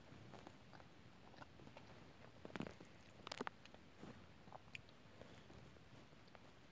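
Faint biting and chewing of a piece of bábovka, a Czech bundt cake, with a few small clicks and smacks from the mouth about halfway through.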